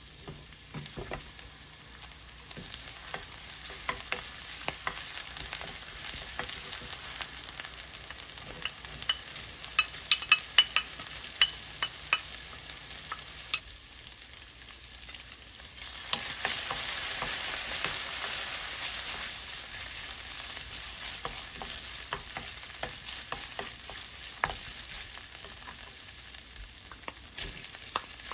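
Food sizzling in a frying pan while being stirred, a utensil clicking and scraping against the pan. A cluster of sharp clicks comes around ten seconds in, and the sizzle grows louder at about sixteen seconds.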